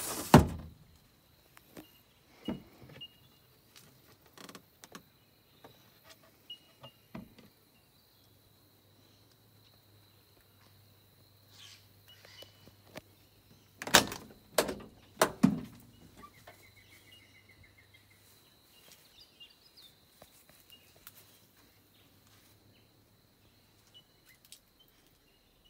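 A built-in camper cabinet door pushed shut with a loud thump, followed by scattered light clicks and taps. About halfway through comes a cluster of three sharp knocks.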